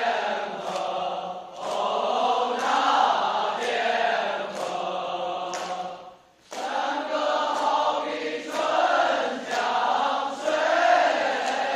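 Group of voices singing a Chinese folk mountain song (shan'ge), with a sharp beat about once a second. The singing breaks off for a moment about six seconds in, then carries on.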